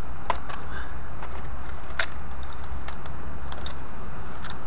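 Scattered sharp clicks, about half a dozen, of metal bottle tops and scrap snapping onto a Kennedy Industrial Magnetic Sweeper as it is pushed over dry grass, over a steady low rumble.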